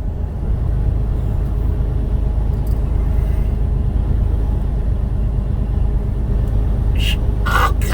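Steady low rumble of a motor vehicle's engine running at idle. A short sound and a voice come in near the end.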